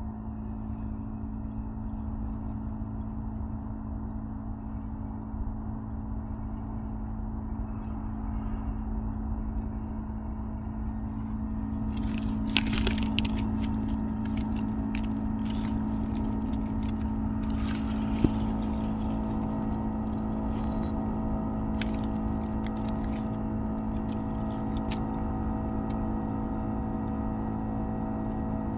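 A Daikin inverter heat pump's outdoor unit running through a defrost cycle: a steady mechanical hum with a held tone, growing louder and richer in tones about twelve seconds in. Short bursts of hissing and crackling come a little after that and again a few seconds later.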